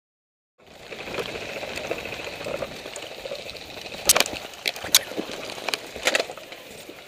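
Silence for about half a second, then footsteps and rustling of leaves and undergrowth as a person moves quickly through woodland. Sharp clicks cut through about four, five and six seconds in.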